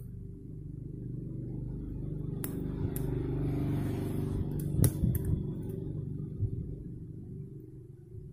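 A low engine-like rumble that builds to its loudest about halfway and then fades away, with a few sharp clicks of metal tweezers against the phone's parts in the middle.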